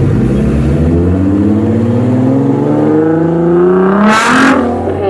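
Car engine accelerating hard, its pitch climbing steadily for about four seconds. Near the end comes a brief loud hiss as the revs drop at a gear change.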